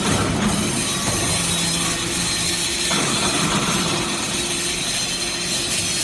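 A hydraulic metal-chip briquetting press running through its cycle: a steady hum over a loud mechanical hiss from its hydraulic power unit, changing in tone about three seconds in.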